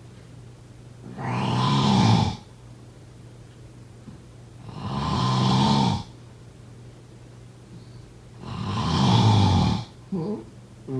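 A person snoring: three long snores about three and a half seconds apart, each swelling in loudness and then cutting off, followed by two short snores near the end.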